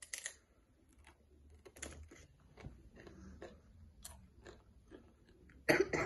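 Someone biting into and chewing Miss Vickie's kettle-cooked potato chips. A sharp crunch at the first bite is followed by irregular crunching, with a louder burst near the end.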